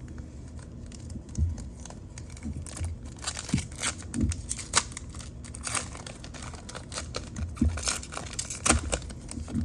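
Foil wrappers of football trading-card packs crinkling as they are handled, in a string of short crackles that come thickest in the middle and later part.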